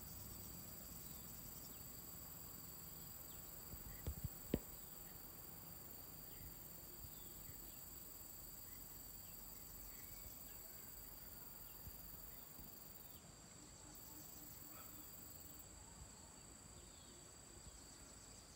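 Faint outdoor ambience of insects trilling steadily at a high pitch. A few sharp clicks come about four seconds in.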